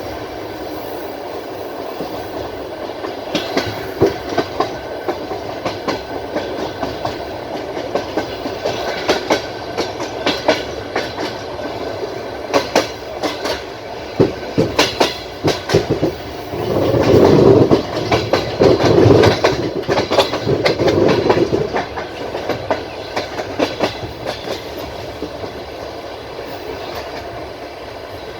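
Passenger train carriage running at speed: a steady rumble with the clickety-clack of the wheels striking rail joints in quick groups. About two-thirds of the way through the rumble swells louder for a few seconds.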